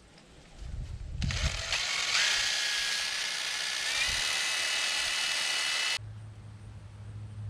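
Cordless power tool running for about five seconds, driving in the brake caliper bracket bolts. Its whine steps up in pitch twice, then cuts off suddenly.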